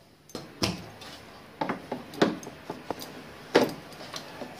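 A stainless-steel mixer-grinder jar and its plastic lid being handled: a handful of separate knocks and clinks as the lid goes on and the jar is set onto the motor base, the loudest about three and a half seconds in.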